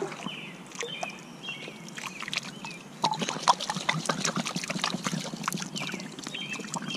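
A black glass bottle swished and dunked in shallow river water: from about three seconds in, dense splashing and sloshing. Short bird chirps sound over it at the start and again near the end.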